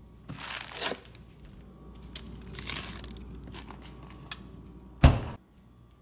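Plastic food packaging rustling and crinkling in short bursts as packages are shifted around in a freezer. One loud thump comes about five seconds in.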